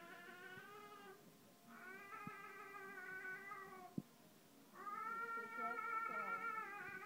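Three long, drawn-out wavering vocal cries, each held about two seconds with a short gap between, the last starting near the end and running on, with a few soft clicks in between.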